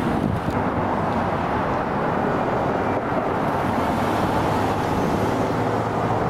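Road traffic passing close by: the steady engine and tyre noise of vehicles on the street.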